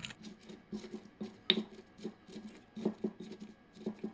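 Stone pestle crushing and grinding red bird's-eye chilies in a stone mortar (cobek and ulekan): irregular soft knocks and scraping of stone on stone, with a few sharper strikes.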